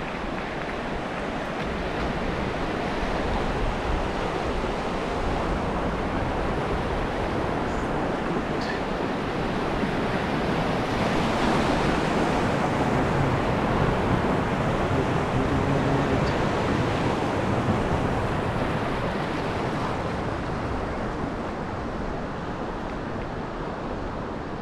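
Steady rushing of a river in flood, fast brown water pouring past a low crossing bridge. It swells a little toward the middle and eases off near the end.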